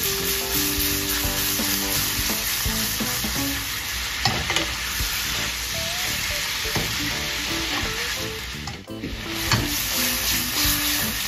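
Large shell-on prawns sizzling in butter and oil in a stainless steel pan as a wooden spatula stirs them, with a couple of sharp clicks of the spatula against the pan.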